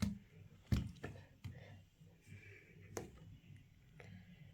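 Handling of a smartphone and its glass back panel: a few sharp clicks and taps, the loudest just under a second in, over a low steady hum.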